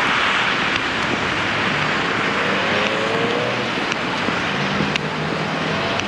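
City street traffic on a snowy road: a steady hiss of car tyres, with a vehicle's engine hum coming in about two seconds in and rising slightly in pitch.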